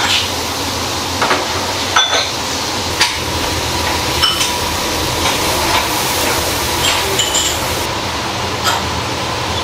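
Steel eel skewers clinking and knocking against a stainless-steel charcoal grill, eight or nine sharp metallic clinks at irregular intervals, some with a short ring, over a steady background hiss.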